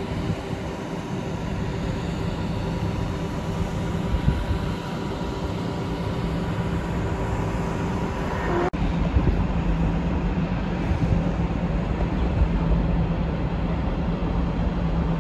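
ER2 electric trains moving slowly through a depot yard: a steady low rumble of wheels on rail with a constant electrical hum. The sound briefly cuts out a little past halfway, then goes on much the same.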